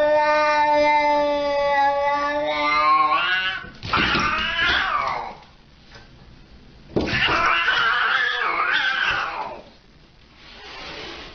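A cat caterwauling in a territorial face-off with another cat: one long held yowl of nearly four seconds, then two shorter, harsher yowls that rise and fall, and a fainter one near the end.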